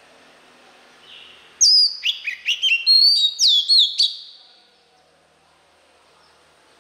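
Male oriental magpie-robin singing a single loud phrase of sharp, clear whistled notes, many sliding down in pitch, starting about a second and a half in and lasting about two and a half seconds.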